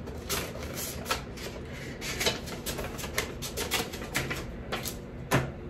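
A paper envelope and card being handled and folded: a run of irregular crisp rustles and light clicks, the sharpest about five seconds in.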